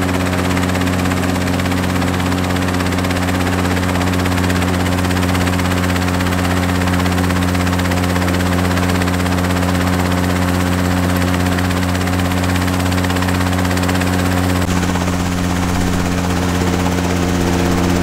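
Ultralight helicopter's engine and rotor running at a steady speed, a constant low tone with overtones above it. The sound shifts slightly about fifteen seconds in.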